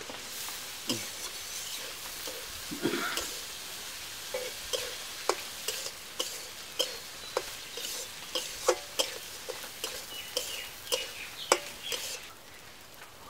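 Food sizzling in a metal wok while a metal spatula stirs and scrapes it, with repeated sharp clinks of the spatula against the pan, coming faster in the second half. The sizzle drops away near the end.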